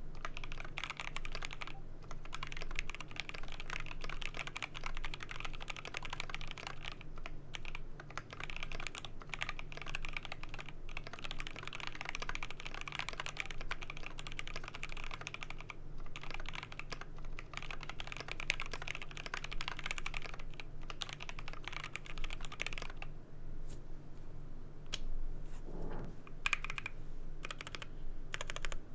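Typing on a GMMK Pro mechanical keyboard with lubed Gateron Ink Black linear switches on a polycarbonate plate and DCP keycaps. Fast, continuous keystrokes thin out to scattered single presses about three-quarters of the way through, with one deeper thump near the end.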